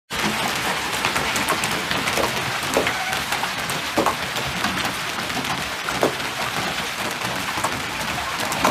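Heavy hail and rain coming down: a dense steady hiss, with many sharp knocks of hailstones striking scattered through it and a few louder hits.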